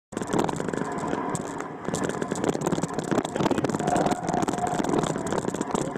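Off-road vehicle engine running while the vehicle jolts over a rough, rocky dirt track, heard from on board.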